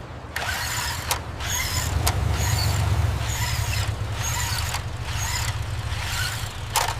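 Car engine running: a steady low drone under a rougher noise that surges and eases roughly once a second.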